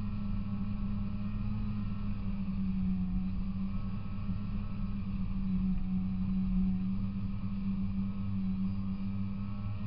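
Polaris Indy 340 snowmobile's two-stroke engine running at a steady throttle as the sled cruises over snow, heard from on board. The pitch holds even and shifts only right at the end.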